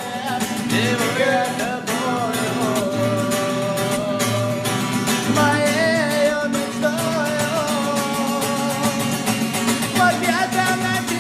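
A song: a voice singing a wavering melody over guitar and a steady beat.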